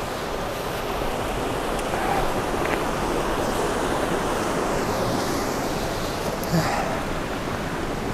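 Steady noise of a mountain stream's water flowing.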